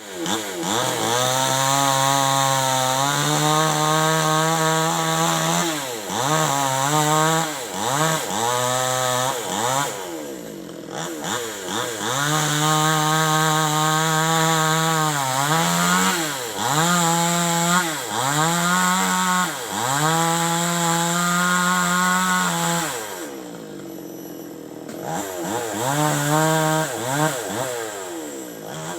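Two-stroke chainsaw cutting wood, held at steady high revs for several seconds at a time, with the throttle repeatedly dropping and revving back up in between. It falls back to a quieter idle briefly about ten seconds in and again about three-quarters of the way through.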